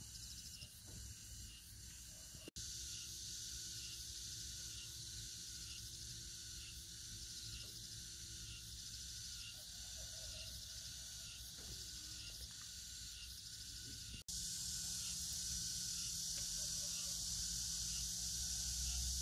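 Steady, high-pitched chorus of insects trilling outdoors, with a regular pulse in it. It breaks off for an instant twice.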